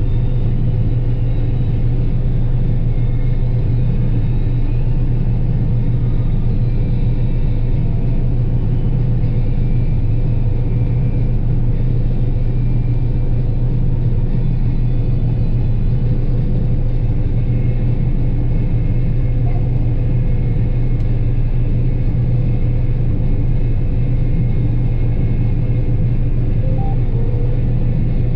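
John Deere 9770 combine running steadily while harvesting soybeans, an even low drone that does not change.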